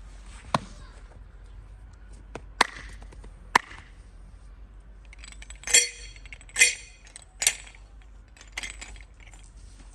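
Sharp cracks and smacks during a head, neck and back massage: three short clicks in the first few seconds, then three louder smacks about a second apart and a softer one near the end.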